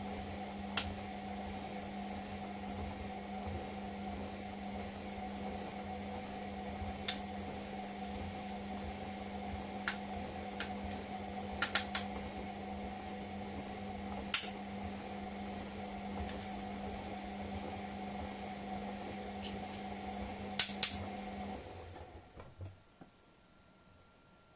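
Indesit washing machine humming steadily with a scattering of sharp clicks and knocks, the hum stopping near the end and leaving only a few faint clicks.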